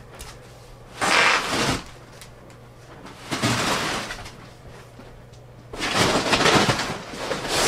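Unpacking noise from a large subwoofer: three bursts of scraping and rustling as the heavy wooden cabinet is turned and its foam packaging is pulled about, the last burst the longest.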